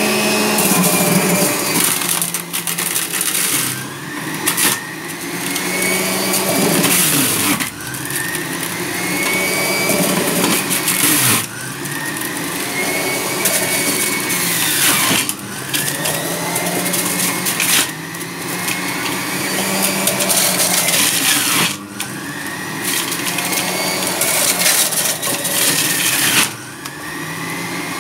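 Electric centrifugal juicer running, its motor whine and grinding noise dipping under load and climbing back every few seconds as pieces of fruit and carrot are pushed down the chute and shredded.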